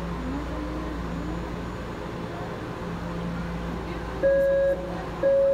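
Low hum and distant murmuring voices in a hard-walled station hall. About four seconds in, an electronic warning beeper starts sounding: steady beeps about half a second long, one each second, louder than everything else.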